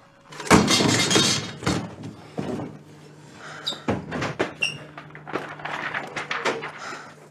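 Frantic rummaging through a room: sheets of paper rustling and being flung about, among a string of irregular knocks and bangs, the loudest about half a second in.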